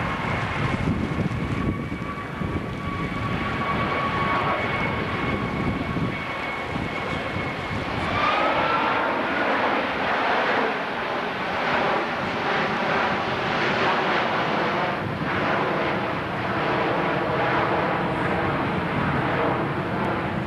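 Airbus A330's twin turbofan engines at full display power as the airliner climbs steeply overhead: a steady jet rumble with a whining tone. About eight seconds in the whine rises in pitch and the sound grows a little louder and busier.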